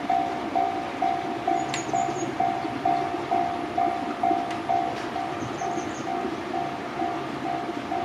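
Japanese level-crossing warning bell ringing in a steady electronic clang, about two and a half strikes a second, warning that a train is approaching as the barriers come down.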